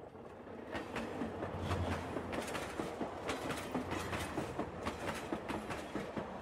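Narrow-gauge diesel heritage train running, its wheels clattering over the rail joints in quick irregular clicks over a low rumble. It fades in at the start.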